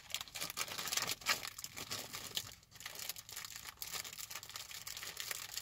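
Food wrapper crinkling and rustling in the hands while eating, a steady run of small crackles.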